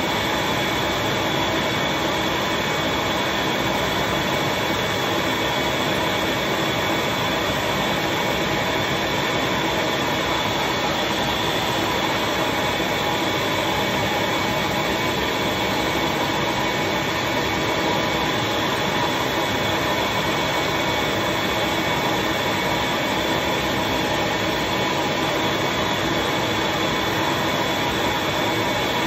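Vacuum motor running steadily with a high whine, holding suction to draw the pulp down during leaf casting of a paper page.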